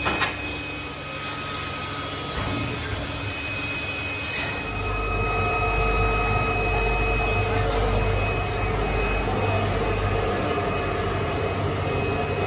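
Steady roar of foundry machinery with a thin whine over it, a deeper rumble joining about a third of the way in. A couple of metal clanks at the start as scrap iron is set over the furnace.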